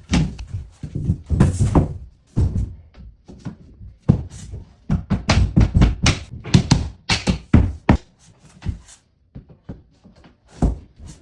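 Repeated, irregular knocks and thunks of vinyl plank flooring being tapped and set into place, some in quick runs of taps.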